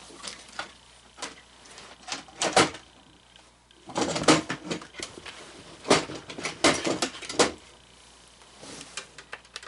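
Hard plastic clicks and knocks from an animatronic figure being handled, about a dozen separate sharp strokes, some in quick clusters.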